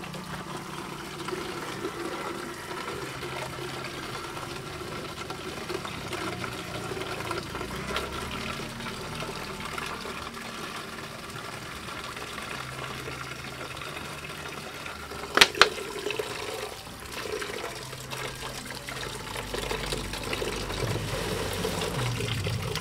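Water running and dribbling from a hanging plastic bottle onto wet wooden planks as live daphnia are rinsed clean before feeding. Two sharp clicks a little past two-thirds of the way through. Near the end the water gets louder as it splashes through a small mesh strainer into a cut-down plastic bottle.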